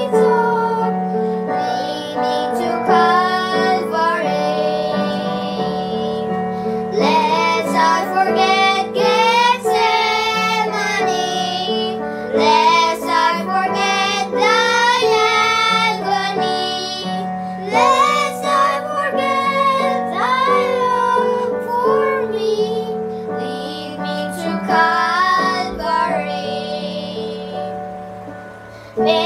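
Children singing a song together over instrumental accompaniment.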